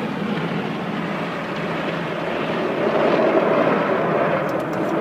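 Automatic car wash at work, heard from inside the car's cabin: spinning cloth brushes and water spray against the body and windows make a steady rushing, which grows louder about three seconds in.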